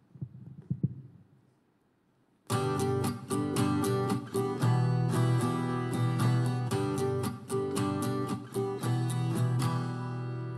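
Instrumental introduction to a choir song starts about two and a half seconds in, with chords struck in a steady rhythm, most likely on guitar. Before it come a few faint knocks and a short near-silent pause.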